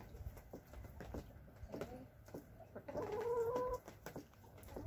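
Domestic hens vocalizing softly, with one drawn-out call about three seconds in, over light clicking and rustling.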